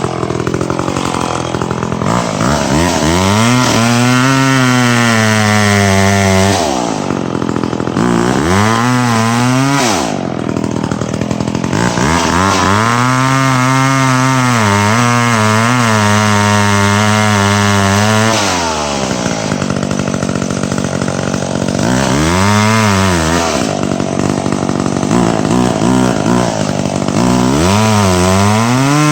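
Gas chainsaw cutting dead ash wood in repeated bursts, about five times. Each time the engine revs up to full speed, its pitch wavers and sags under the load of the cut, then falls back to idle. The longest cut is in the middle.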